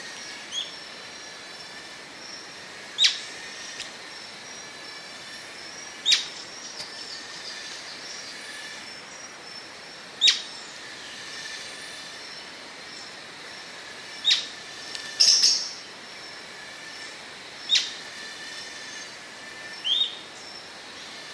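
Atlantic royal flycatcher calling: short, sharp call notes repeated every three to four seconds, about seven in all, over a steady high-pitched background chorus.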